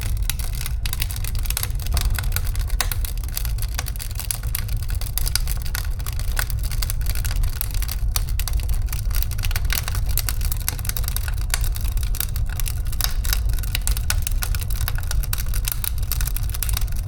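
Stovetop cooking: a steady low rumble with dense, irregular crackling and popping throughout.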